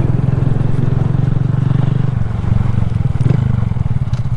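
Honda Grom's 125 cc single-cylinder four-stroke engine running steadily at low revs, heard from the rider's helmet microphone.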